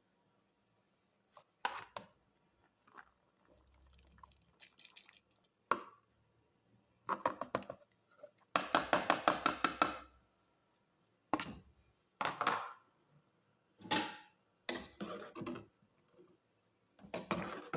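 Kitchen cooking sounds: scattered knocks and clatters of utensils against cookware, with a quick run of about ten strikes in a row near the middle.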